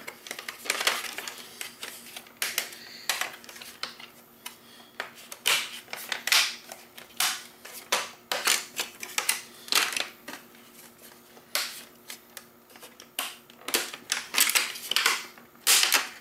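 Plastic clicking and snapping as the front bumper of an iRobot Roomba 700-series vacuum is twisted back and forth to pry it off its clips. The clicks come irregularly, some in quick runs.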